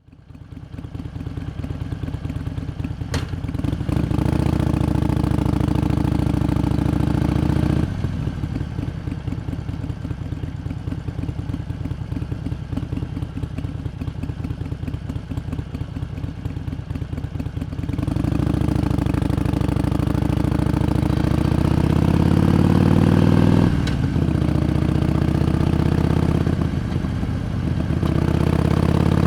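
Harley-Davidson Iron 883's air-cooled 883 cc V-twin running with a loping, uneven idle beat, then pulling away and accelerating with rising pitch, with two brief drops as it shifts up through the gears.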